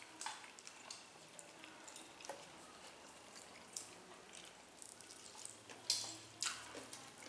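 Faint, scattered clicks and small wet mouth sounds of people eating fried chicken, with a couple of louder clatters about six seconds in.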